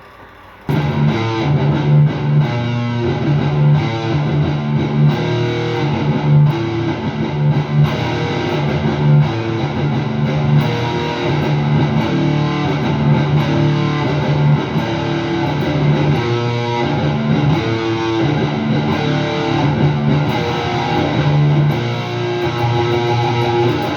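Background blues music led by guitar, starting about a second in and playing steadily.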